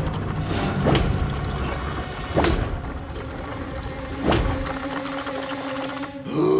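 Cartoon soundtrack: music with three heavy thuds, each about a second and a half to two seconds apart.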